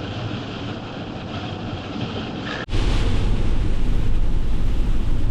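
Steady road and engine noise of a Mercedes-Benz Vito van on the move, without words. About halfway through it cuts abruptly to a louder, deeper rumble.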